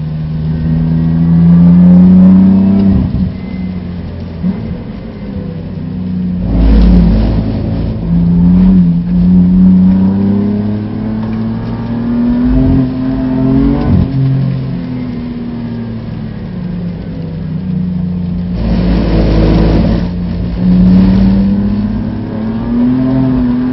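BMW F80 M3's twin-turbo straight-six engine heard from inside the cabin, revving up and dropping in pitch at gear changes as the car accelerates and slows for corners. Twice, about seven and nineteen seconds in, a loud rush of noise swells over the engine for a second or so.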